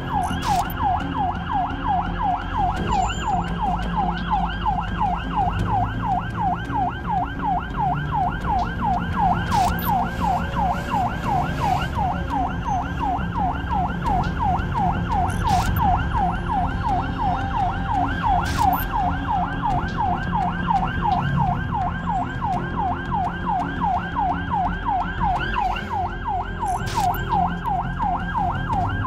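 Ambulance siren on a fast yelp, its pitch sweeping up and down several times a second without a break. It is heard from inside the ambulance's cab over engine and road rumble.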